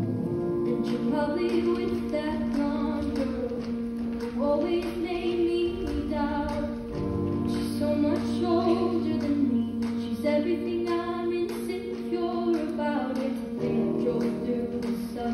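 A cast of mostly female voices singing together over long held accompaniment chords, sung phrase by phrase in a live stage performance.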